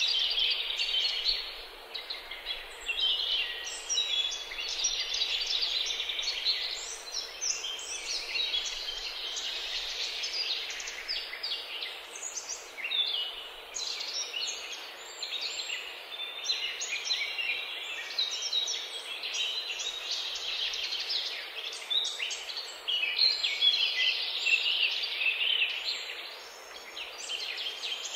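Many songbirds singing and chirping at once: a dense chorus of short, high notes and trills.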